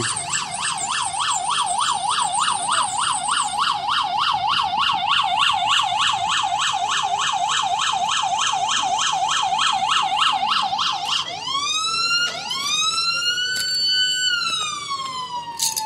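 Ambulance's electronic siren in a fast yelp, about four warbles a second, switching about eleven seconds in to a slow wail that rises, holds and then falls.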